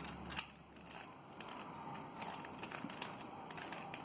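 Plastic Rubik's Cube being twisted: faint clicks and rattles of its layers turning, with a sharper click about half a second in.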